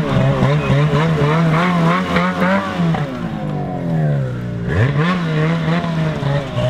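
Ski-Doo Summit two-stroke snowmobile engine revving as the sled rides by, its pitch wavering up and down on the throttle. About three seconds in, the pitch sinks as the throttle eases off, then it climbs sharply again and holds.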